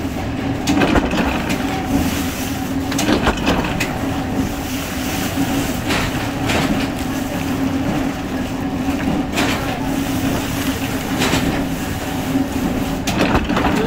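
Plywood factory machinery running with a steady hum and irregular knocks and clatters every second or few seconds.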